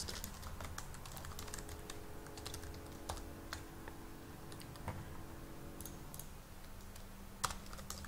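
Typing on a computer keyboard: irregular key clicks in short runs, thinning out for a second or so near the end.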